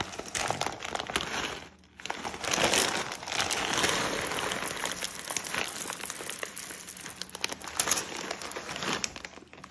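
Dried beans poured from a plastic bag onto parchment paper in a pie crust as pie weights: the bag crinkling and the beans pattering onto the paper, with a short pause about two seconds in.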